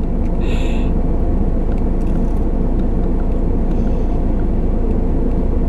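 Steady low rumble of a car idling, heard from inside its cabin, with a brief higher hiss about half a second in.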